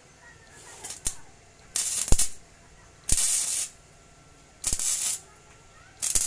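Gasless (flux-core) MIG welder arc crackling in a string of short bursts of about half a second each, with short gaps between: stitch-welding thin tubular steel a little at a time so the wall doesn't burn through.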